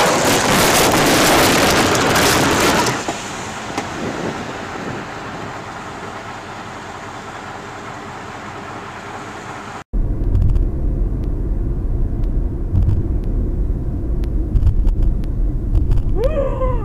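Car dashcam audio: a loud rushing noise for about the first three seconds that dies away to a steady hiss. After a sudden cut, a low steady road-and-engine rumble inside a car, with a few faint clicks.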